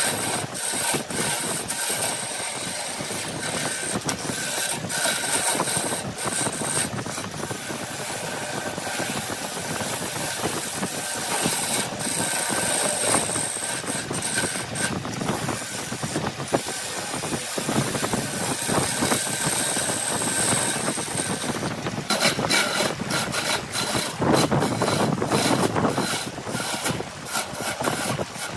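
Woodworking lathe running while a turning tool cuts the spinning wood: a steady scraping hiss over the motor, with many small clicks. The cutting grows harsher and a little louder for the last several seconds.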